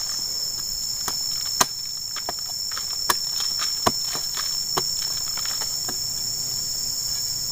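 A hand saw cutting through a felled log: scraping strokes with sharp irregular clicks, the loudest about one and a half, three and four seconds in. Under them runs a steady high-pitched drone of insects.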